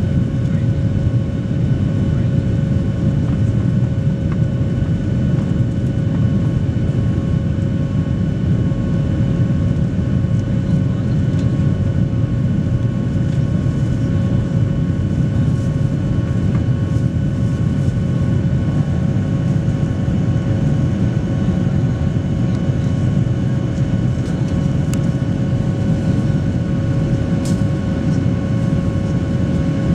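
Cabin noise of a Boeing 737 Next Generation climbing after takeoff: a steady deep rush of air and engine sound from its CFM56-7B turbofans, with several thin steady whining tones above it.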